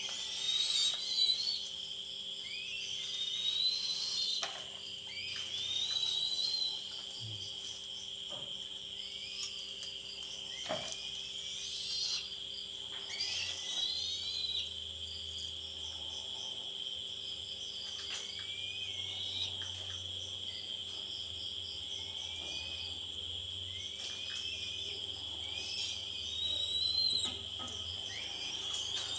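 A steady, high insect trill runs throughout, overlaid by short rising whistled bird calls repeated every second or two, with a few faint clicks.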